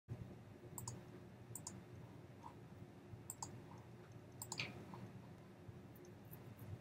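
Faint computer mouse clicks, about four of them, each a quick double tick of button press and release, over a low steady room hum.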